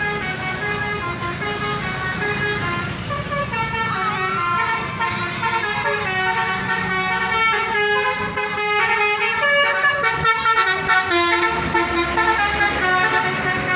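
A bus's basuri multi-tone air horn playing a melody, stepping from note to note, over the low running of the bus engine. It grows louder from about eight seconds in.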